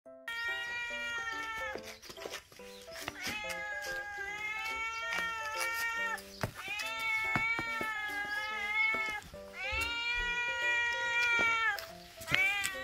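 A stray cat meowing over and over in long, drawn-out calls, the insistent meowing of a cat begging for food. A light stepping background melody plays underneath.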